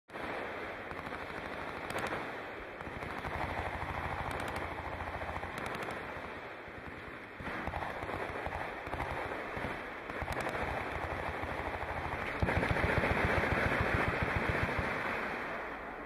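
Distant automatic gunfire from many machine guns firing at once, a continuous rapid rattle that grows denser and louder about twelve seconds in.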